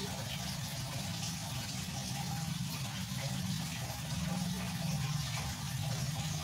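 Aquarium filter pump running: a steady low hum under a continuous hiss of flowing water.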